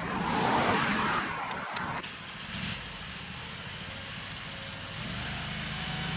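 Engines of a compact mini excavator and mini skid steer running. There is a louder rushing noise in the first second or two, then a steady engine hum that grows a little louder about five seconds in.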